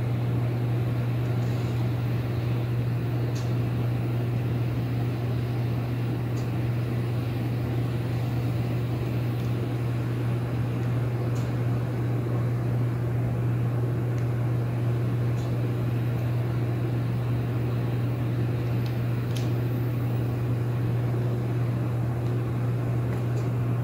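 Steady low hum of a running machine with an even hiss over it, broken only by a few faint ticks.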